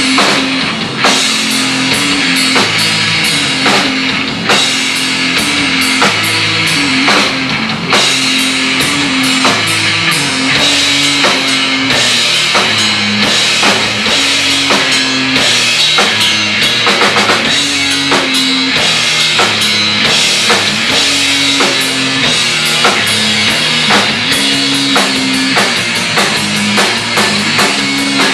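A rock band playing live: electric guitar and a drum kit, loud and without pause, over a low riff that repeats every couple of seconds.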